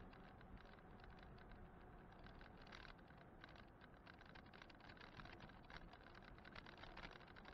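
Faint, irregular rattling and ticking with a low, steady rumble: an e-bike and its mounted camera shaking over an asphalt road as it rides along.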